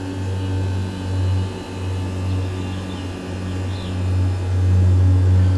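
Generator running with a loud, steady low hum that swells and dips in level.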